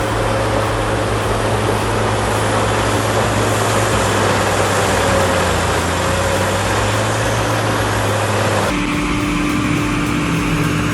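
Heavy diesel-powered wood-processing machine running steadily: a deep engine hum under a dense wash of mechanical noise. About nine seconds in, the sound cuts abruptly to a different machine with a higher hum.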